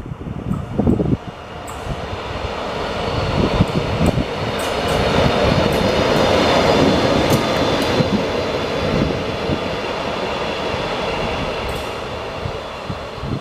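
Škoda-built ČD Class 242 electric locomotive passing close by. Its noise builds to a peak about six seconds in and then eases off, with a steady high whine over it. There is wind buffeting on the microphone in the first second.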